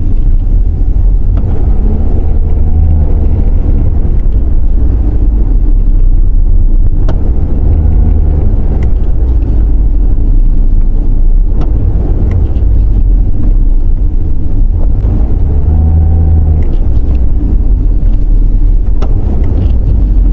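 Car interior on the move: a 2015 Audi A4's road and engine rumble, steady and loud, with the engine note swelling briefly three times as the throttle is pressed. A few faint sharp ticks sound through it.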